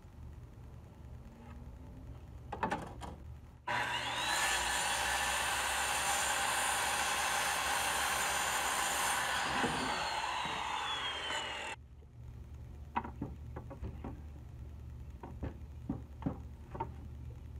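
SKIL circular saw starting about four seconds in and cutting through a wooden board, its whine rising as the blade spins up and falling away as it winds down; it stops abruptly about twelve seconds in. Before and after it, a few light knocks of boards being handled.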